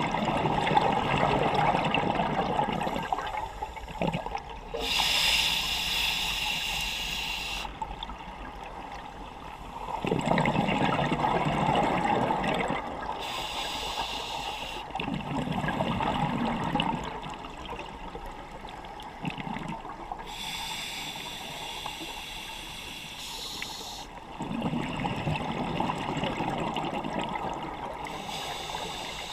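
Scuba diver breathing through a regulator underwater: hissing inhalations alternate with bubbling, gurgling exhalations, a few seconds apart.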